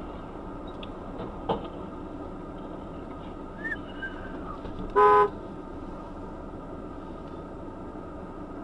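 A vehicle horn gives one short toot about five seconds in, over the steady hum of a car interior. A light knock sounds about a second and a half in.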